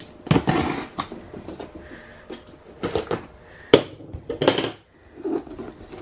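Cardboard laptop box being handled and shifted on a table: a few short scrapes and rustles of cardboard, with a sharp tap a little past the middle.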